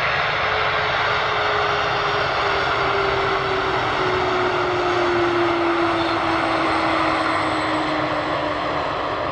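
Boeing 747-400F's jet engines running loud and steady during the landing rollout, a dense rush of engine noise with a humming tone that slowly falls in pitch.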